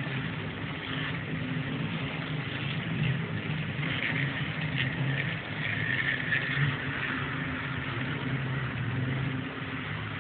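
HO scale model train running past on the layout: a steady low hum with a fainter hiss above it.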